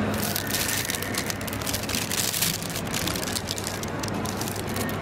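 Paper shopping bag crinkling and rustling as it is handled, a dense crackle starting just after the beginning.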